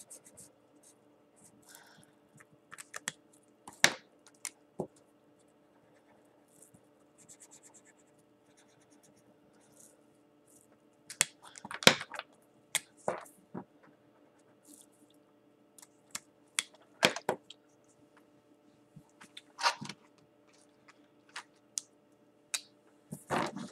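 Felt-tip markers scratching softly on paper in short strokes. Sharp clicks and knocks come every few seconds as markers are picked up, handled and set down on the table. A faint steady hum runs underneath.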